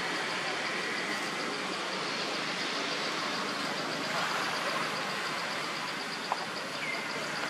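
Steady outdoor background noise with a fast, even, high-pitched pulsing throughout and a single short tick about six seconds in.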